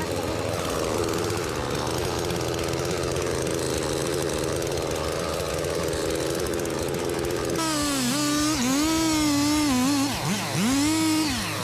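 Chainsaw engine running steadily, then, after an abrupt change about two-thirds of the way through, revving with its pitch rising and falling, dropping sharply once near the end and climbing back.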